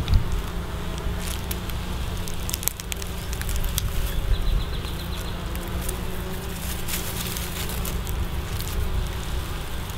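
Honeybees buzzing around a hive, a steady low hum, with a few brief light clicks.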